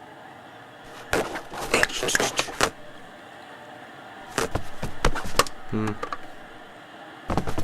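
Irregular clusters of sharp knocks and clatters, with a short low voice-like sound about six seconds in.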